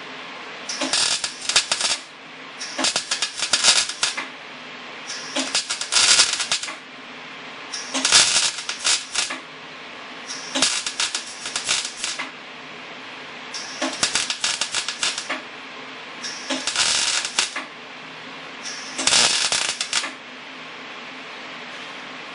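Wire-feed welder arc crackling in eight short bursts of about a second each, every two to three seconds, over a steady hum: short welds laid over stress cracks in a car's steel frame.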